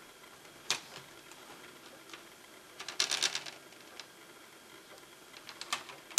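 Plastic screen bezel of a Lenovo Ideapad Y470 laptop being pried off the lid by hand, its clips letting go in sharp clicks: one a little under a second in, a quick run of clicks about three seconds in, and a few more near the end.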